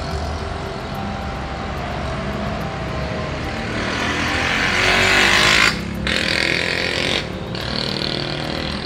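Road traffic noise with a vehicle passing close: its hiss swells to a peak about five seconds in and then cuts away sharply, leaving the steady hum of traffic.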